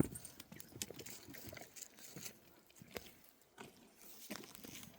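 Footsteps crunching on a trail: scattered, uneven steps and rustles, thinning out in the middle and picking up again near the end.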